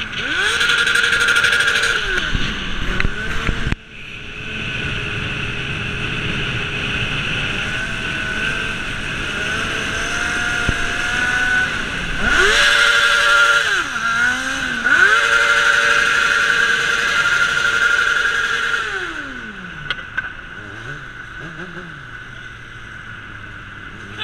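Honda CBR600 sport bike's inline-four engine held at high revs for long stretches, consistent with riding on the rev limiter, with brief drops and climbs in pitch. About nineteen seconds in the revs fall away to a low, quieter run.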